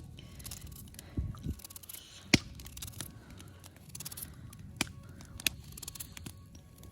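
Knife cutting a carrot into large chunks: a few sharp, separate clicks and knocks of the blade going through, with light scraping between them.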